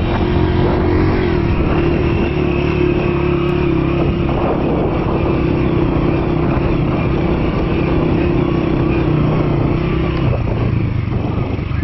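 A motor vehicle's engine running steadily under way, a continuous drone with a strong hum, its note shifting slightly about ten seconds in.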